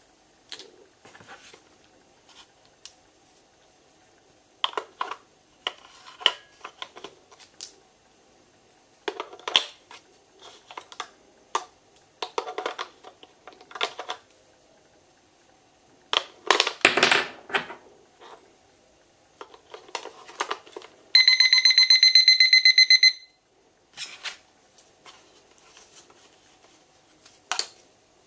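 Batteries clicking and rattling into the plastic battery compartment of a cheap LCD alarm clock. About three-quarters of the way through, the clock's buzzer gives a loud, rapidly pulsing high beep for about two seconds, the power-up beep once the batteries are in.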